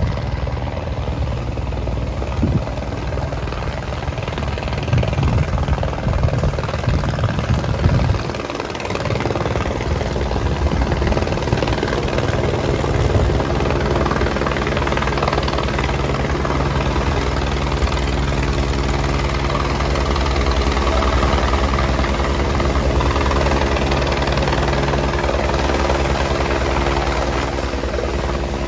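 Helicopter approaching and coming in to land, its rotor and engine running steadily and getting slightly louder as it nears.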